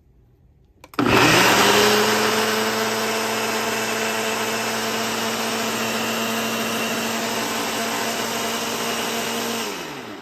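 Ninja Auto-iQ 1000 W blender motor switched on about a second in. It spins up quickly and runs steadily and loudly while grinding soaked rice and urad dal into dosa batter, then winds down with a falling pitch near the end.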